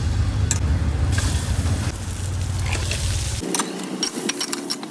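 A steady low rumble, then from about three and a half seconds in, rapid sharp crackles and pops of food frying in hot oil.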